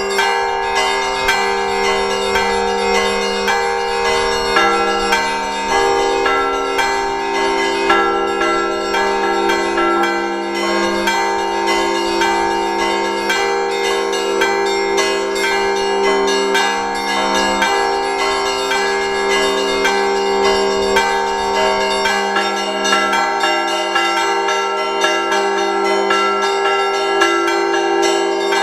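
Russian Orthodox church bells rung by hand in a festive Sunday peal: quick, dense strikes on the smaller bells over the steady ring of the larger bells.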